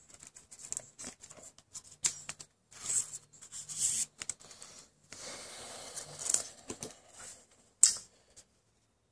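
Pokémon trading cards handled by hand: a run of soft clicks, scrapes and rustles as the cards are shuffled and moved, with a longer sliding rustle about five seconds in and a sharp click near the end.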